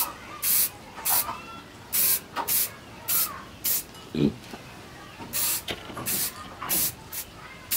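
Aerosol spray can hissing in short bursts, about one every half second to second, as it is sprayed onto a forged steel cleaver blade. A brief low sound comes about four seconds in.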